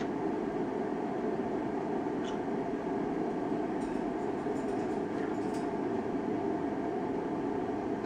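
Steady, even mechanical background hum, with a few faint, brief high-pitched sounds about two, four and five and a half seconds in.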